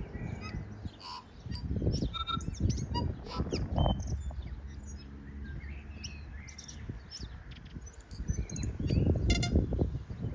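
A tui singing: a string of short chirps, whistles and clicks at many different pitches. Wind rumbles on the microphone underneath and gusts stronger twice.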